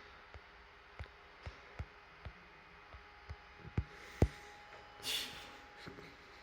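Irregular light knocks and thumps, the loudest about four seconds in, then a brief rustle about five seconds in, over a faint steady hum.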